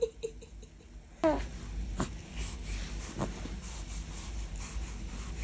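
A newborn baby's soft breathing and a few small grunts, over a low rumble of handling noise.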